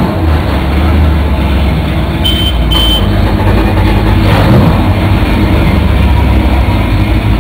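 The Regal 4060's twin Volvo Penta gasoline engines running steadily with a low, deep hum. Two short, high beeps come about two and a half seconds in.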